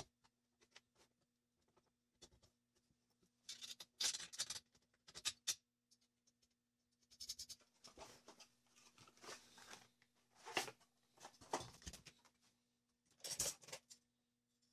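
Scattered handling noises: short scraping, rustling and knocking sounds in irregular clusters with pauses, as an angle grinder and a rubber inner tube are handled, over a faint steady low hum.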